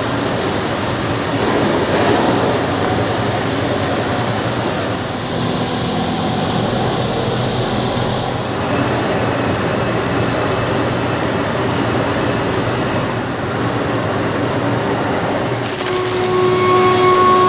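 High-speed 5-axis CNC machining center milling aluminum, a steady dense cutting noise. Near the end a steady whine with several pitches comes in over it.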